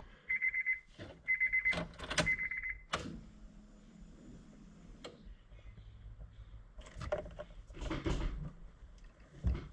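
Honda S2000's electronic warning chime beeping rapidly at a high pitch for about three seconds, then a click as the ignition comes on and a faint low hum. A few soft knocks and a thump follow near the end.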